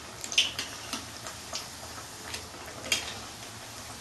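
Onion pakoras deep-frying in a kadai of hot oil with a steady sizzle, while a steel spatula clicks and scrapes against the pan, sharpest about half a second in and again near three seconds.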